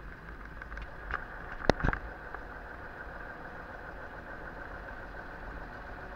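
Steady engine and road noise inside the cab of a moving fire engine, with one sharp knock a little under two seconds in.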